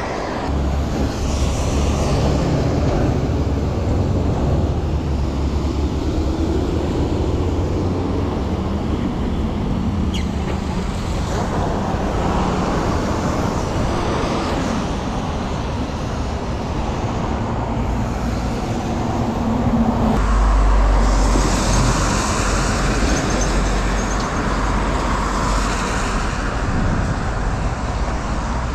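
Road traffic on a wet road: tyres hiss over the water with a steady low rumble. A heavier vehicle passes, louder, about two-thirds of the way through.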